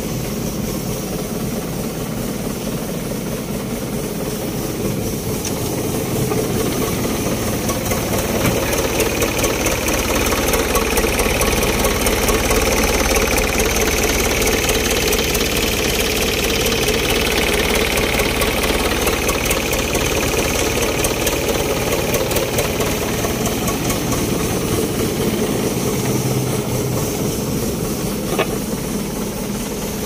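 Backhoe's diesel engine running steadily, growing louder several seconds in and easing off again toward the end. A single sharp click near the end.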